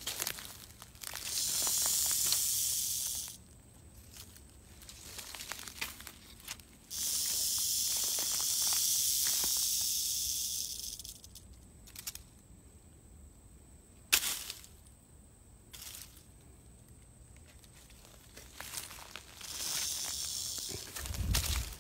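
Timber rattlesnake buzzing its rattle as a defensive warning: a steady high hiss in bursts, one of about two seconds and then a longer one of about four seconds, and a fainter burst near the end. A single sharp click comes in between, and a low thud at the very end.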